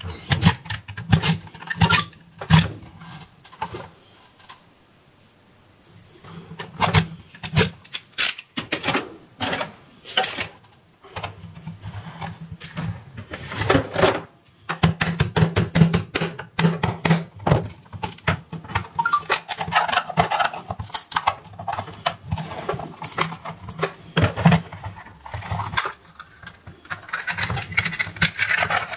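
Plastic case of an HP 0957-2231 printer power adapter being pried open with a flat screwdriver: irregular clicks, knocks and cracks of the plastic and the tool, with a quiet pause a few seconds in.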